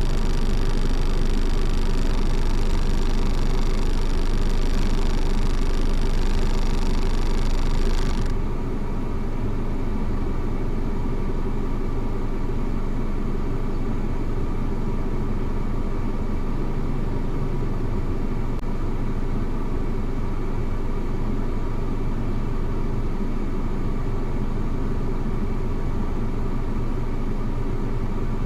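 Car engine running steadily with a low, even hum. About eight seconds in, the higher hiss cuts off abruptly and the sound becomes a little quieter.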